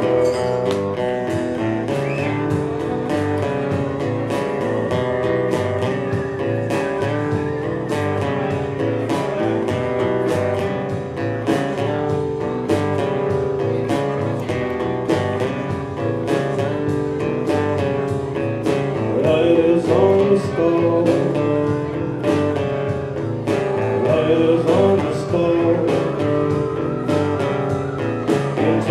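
Live band playing a blues-country number: strummed acoustic guitar, electric guitar and drums keeping a steady beat, with a wavering guitar lead line coming in during the second half.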